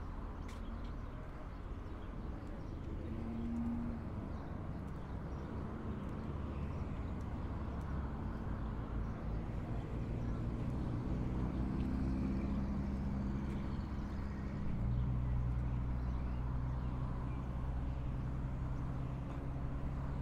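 Motor vehicle engine running close by: a low, steady hum that grows louder about halfway through and steps up again about three-quarters of the way in.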